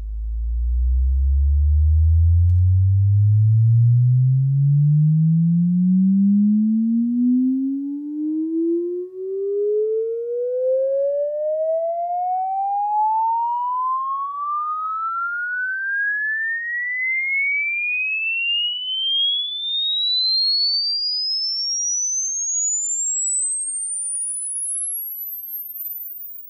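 A sine-wave test sweep: a single pure tone that rises evenly and slowly from deep bass to a very high, thin pitch, then cuts off suddenly. It is the kind of frequency sweep used to test a speaker's response after re-foaming.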